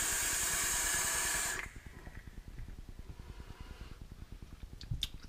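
A hit on a tube vape mod with a 25 mm atomizer: a steady hiss of air and vapour lasting about a second and a half, which then stops. A couple of faint clicks follow near the end.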